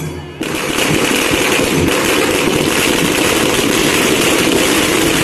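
A long string of firecrackers laid on the ground going off in a rapid, continuous chain of bangs, starting suddenly about half a second in.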